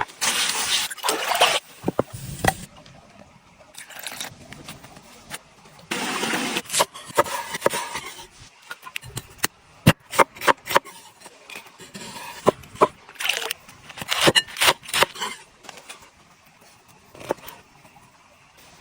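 Food being prepared by hand: several short bursts of rustling or scraping, and a quick run of sharp clicks and knocks in the middle.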